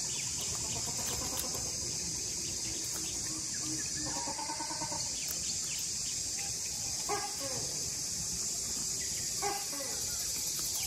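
A steady high-pitched insect drone with a bird calling over it: one longer call about four seconds in, then short falling calls roughly every two seconds in the second half.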